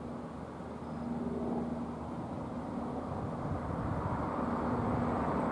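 Freight cars rolling along the track: a steady rumble of steel wheels on rail that slowly grows louder.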